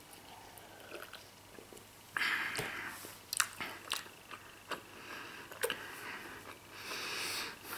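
A person biting and chewing a slab of rubbery Emmentaler cheese, with wet mouth clicks. A louder hiss comes about two seconds in and again near the end.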